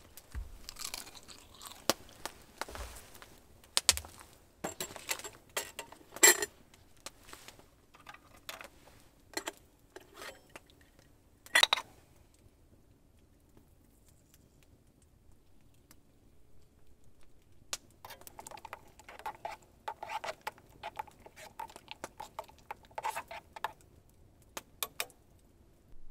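Metal camp cookware handled while making coffee: scattered knocks and clinks of a steel mug and a hand coffee grinder. After a quiet spell there is a run of rapid metallic clinking lasting several seconds.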